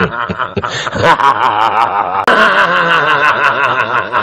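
A man laughing hard and without a pause, a high laugh that warbles rapidly in pitch. It jumps abruptly at an edit about two seconds in.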